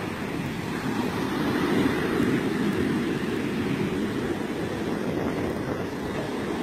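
Ocean surf breaking and washing up a sandy beach: a steady rushing rumble.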